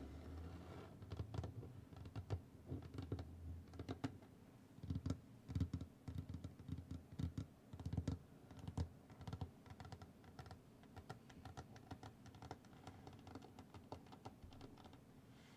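Rapid, irregular tapping and clicking, like fingers typing or drumming on a hard object, busiest in the middle and thinning out toward the end.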